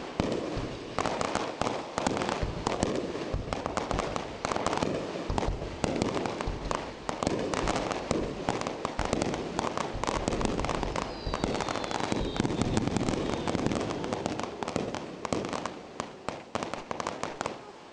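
Fireworks shells bursting overhead in a dense, rapid barrage, booms and crackling overlapping without a break. The barrage thins and dies away near the end.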